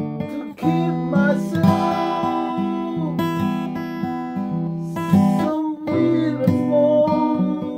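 Music: an acoustic guitar playing chords that change every second or so.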